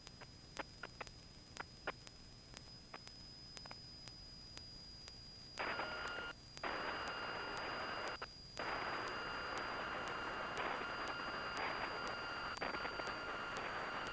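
Faint hiss of an aircraft headset intercom line with the squelch closed, so the engine is not heard. A few soft clicks come in the first half. From about six seconds in a low hiss with thin steady tones sets in, cutting out briefly twice.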